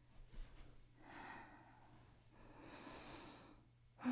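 Soft, close-miked breathing of a woman: one slow breath in and one out, each lasting about a second.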